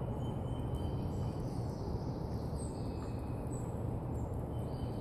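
Steady low outdoor background noise with a few faint, short bird chirps high above it.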